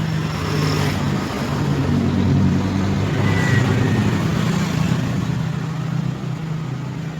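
Motor vehicle running close by with a steady engine hum. A rushing traffic swell rises and fades in the middle, like a vehicle passing.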